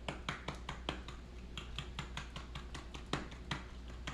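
Quick, irregular light clicks and taps, several a second, from a spice container being shaken and tapped to sprinkle blackening seasoning over fish.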